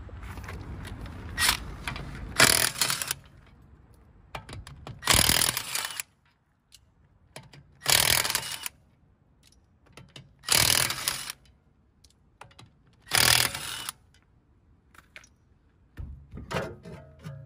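Cordless impact wrench hammering the lug bolts loose on a BMW's rear wheel: five short bursts of about a second each, a few seconds apart, one per bolt. A few lighter knocks follow near the end.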